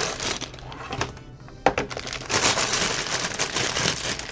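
Loose plastic Lego pieces rattling and clicking as they are sorted through by hand, with one sharp click about a second and a half in.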